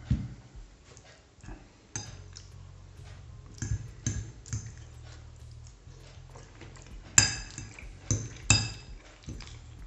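A drinking glass set down on the table with a low thud, then a metal fork clinking and scraping against a ceramic plate several times. The loudest clink, about seven seconds in, rings briefly.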